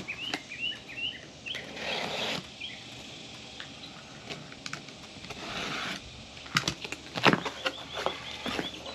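Utility knife slicing the packing tape on a cardboard box, with scraping and rustling of the cardboard and a few sharp knocks as the box is handled near the end. A bird chirps repeatedly in the background.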